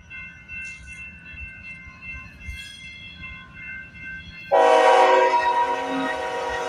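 Freight locomotive horn: a faint, distant chord at first, then about four and a half seconds in, a sudden loud blast of the multi-note chord that holds steady.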